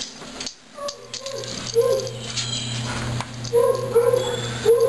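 A dog yipping in short, high barks, repeated every second or so, over a steady low hum.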